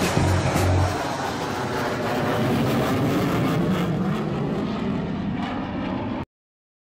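Military fighter jet flying overhead, its engine noise a steady rush, cut off suddenly about six seconds in. Music with a heavy bass beat plays over it for about the first second.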